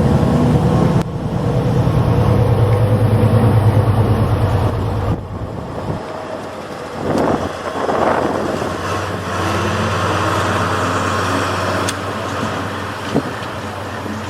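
Class 70 diesel-electric locomotive's engine running loud with a pulsing note, then dropping off sharply about five seconds in to a quieter steady engine note with some rushing noise.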